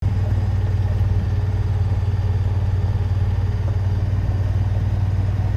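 Vehicle engine idling, a steady low rumble.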